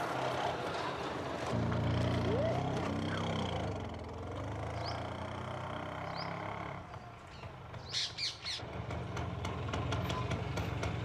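Birds chirping and calling over a low steady hum, with a short burst of louder, harsher calls about eight seconds in.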